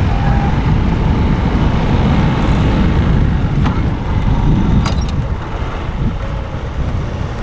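Motor scooter running as it rides slowly across a forecourt, under a low rumble of wind buffeting the microphone. A couple of light clicks come about four and five seconds in, and the rumble eases near the end.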